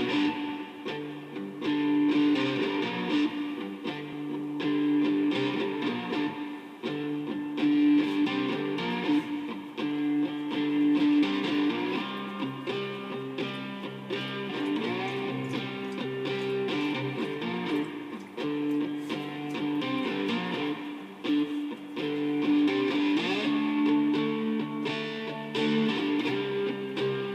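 A three-string fretless plucked-string instrument played like a guitar, picking a steady line of notes with some notes sliding up and down in pitch.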